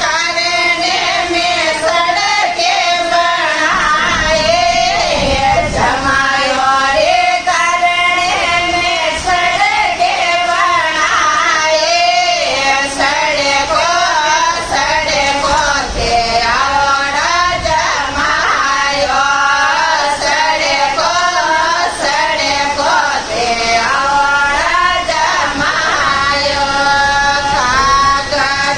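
Female voice singing a Marwari jamai sa geet, a teasing wedding song for the son-in-law, in a continuous sustained melody.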